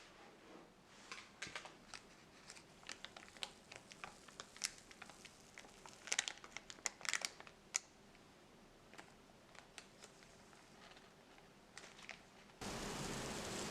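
Paper crinkling and rustling in short irregular crackles while the cake is handled. About a second before the end a steady hiss starts suddenly.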